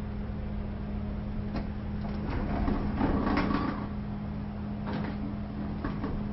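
Automatic sliding door in motion over a steady low hum: clicks, then a louder rattling slide along its track peaking about three seconds in, and a few more clicks after it.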